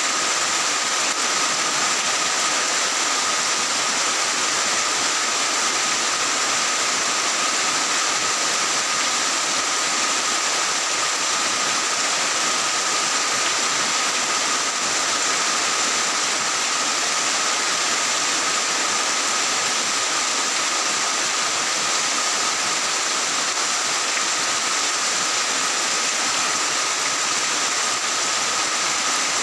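Heavy rain falling steadily on tiled roofs: a dense, even hiss that does not let up.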